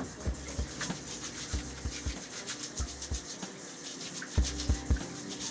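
Tap water running over fruit while it is rubbed and scrubbed by hand, a rapid scratchy scrubbing over the flow, to wash the wax off its skin.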